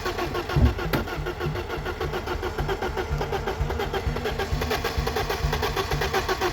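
Starter motor cranking a 1995 BMW E34's engine in an even rhythm of compression pulses, the engine turning over without catching. A louder thump comes just over half a second in.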